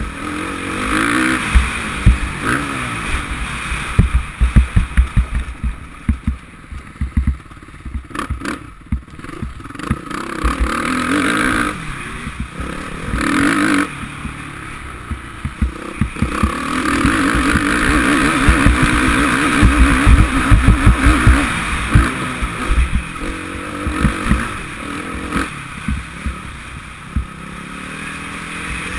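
Suzuki RM-Z450 four-stroke single-cylinder motocross engine heard from the rider's helmet camera, revving up and dropping back repeatedly as the throttle is opened and shut over a rough track. Frequent low thuds from wind and bumps on the camera.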